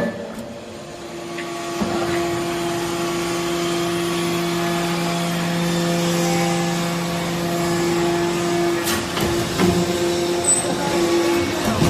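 Magnesium dust baler (briquetting press) running with a steady mechanical hum. A deeper tone joins about two seconds in and drops out about three-quarters of the way through. A few sharp knocks come near the start and near the end.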